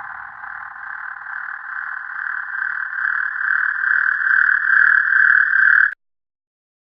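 Cinematic riser sound effect: a pulsing tone that swells steadily louder and creeps up in pitch, then cuts off suddenly about six seconds in.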